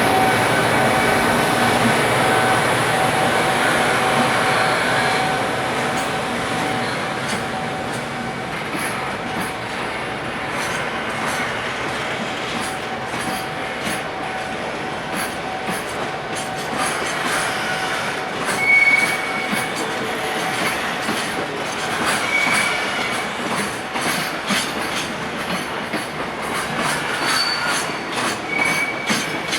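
Freight train of container flatcars rolling past on the rails: a steady rumble with a faint tone that fades early on, then a run of regular clicks from wheels crossing rail joints, and short high wheel squeals about two-thirds of the way through and near the end.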